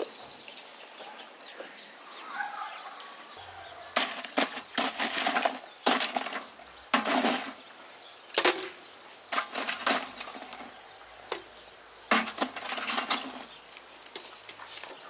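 Lumps of charcoal clattering and clinking against the sides of metal buckets as metal tongs lift them out and drop them in, in a series of short bursts starting about four seconds in.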